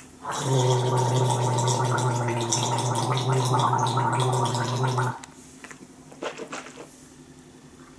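A man gargling a mouthful of mouthwash concentrate with a steady, bubbling, voiced gurgle for about four and a half seconds, stopping abruptly; a few faint clicks follow.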